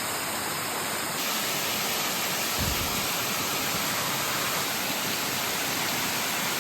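Waterfall pouring steadily, a loud even rush of falling water that turns brighter about a second in. A brief low thump about two and a half seconds in.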